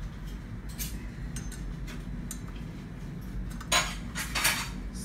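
Light metallic clinks and rattles of a bicycle crank, chainring and Allen key being handled, with two louder clattering clinks near the end.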